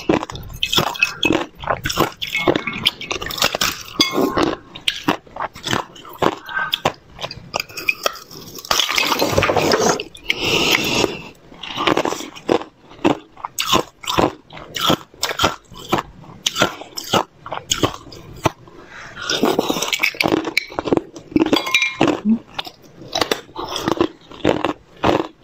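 Thin clear ice being bitten and chewed: a run of sharp cracks and crunches, with two longer stretches of steady crunching about a third and three quarters of the way in.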